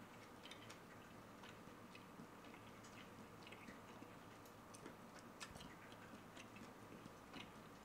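Near silence: room tone with faint, irregular small clicks scattered throughout.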